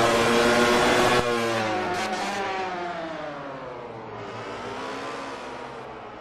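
MotoGP racing motorcycle engine running at high revs. About a second in the sound drops off suddenly; then the engine note falls, rises again and fades away.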